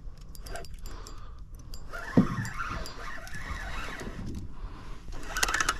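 Handling noise on a small fishing boat while a hooked bass is brought in: scattered clicks, one sharp knock about two seconds in, and rustling and clatter near the end.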